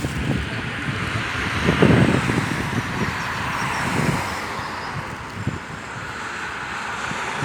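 Road traffic passing with a steady tyre-and-engine hiss, and wind buffeting the microphone in low thumps, strongest about two seconds in.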